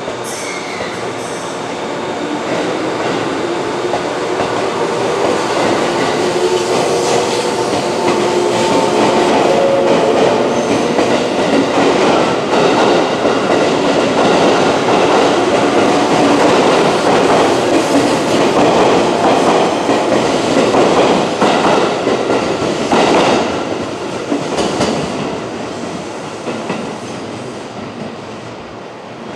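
JR 415 series 1500-subseries electric train pulling out of the station. Its traction-motor whine rises in pitch as it gathers speed, growing louder, with wheels clattering over rail joints. The sound drops away in the last few seconds.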